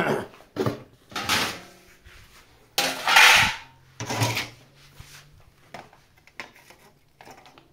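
Three or four short scraping, sliding noises from handling near a metal cabinet, the loudest lasting just under a second about three seconds in, followed by a few light clicks.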